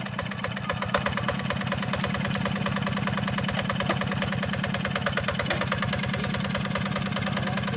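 Hand tractor's Yanmar diesel engine running steadily with a rapid, even chugging.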